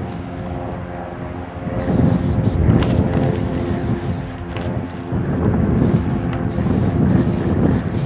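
Aerosol spray-paint can hissing in a series of bursts, some short puffs and some held for about a second, as paint goes onto the metal side of a freight car. A steady low hum runs underneath.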